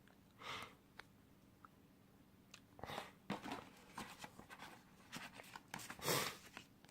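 Phone box and packaging being handled: a short rustle about half a second in, then a run of rustles, clicks and scrapes over the last few seconds, loudest near the end.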